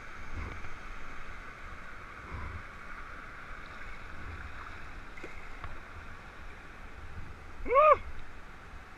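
Steady rush of river water over a rapid around a kayak, with a few soft low thumps from the paddling. Near the end, a short, loud, high-pitched cry of a voice that rises and falls in pitch.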